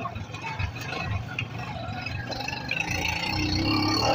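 Motorcycle engine running with road and traffic noise, heard from the back of the moving bike, growing louder near the end.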